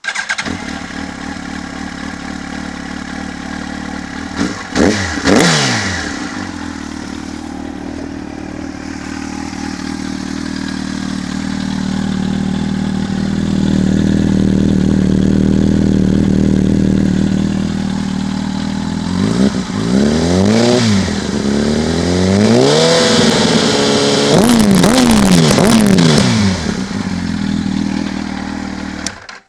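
2002 Yamaha R1's 998 cc inline-four engine through a high-mount MIG aftermarket exhaust, running and being revved: a sharp double blip about five seconds in, a steady raised idle through the middle, then a run of quick revs from about twenty seconds in. The sound cuts off suddenly near the end.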